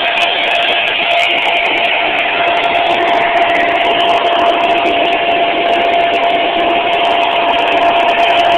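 Homemade turbocharger jet engine running on gasoline: a loud, steady roar with a constant whistle from the turbo's intake.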